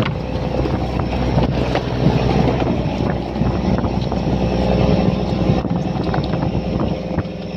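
A fishing boat's engine running steadily, heard on deck, with scattered light knocks and clatter over it.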